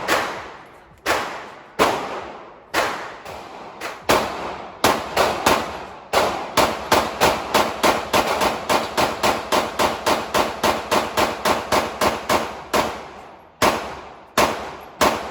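Gunshots from semi-automatic pistols at a shooting range, each a sharp crack with a short decaying tail. Single shots about a second apart at first, then a fast string of about three shots a second for several seconds, then slower again near the end.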